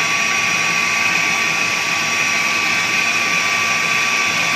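Electric food processor running steadily at full speed, its motor whining on one constant pitch as the blade blends a chocolate spread mixture of milk, cocoa and melted chocolate.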